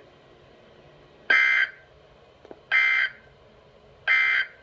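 Emergency Alert System end-of-message tones: three short, identical buzzing data bursts (the digital 'NNNN' end code), about a second and a half apart, marking the end of the alert.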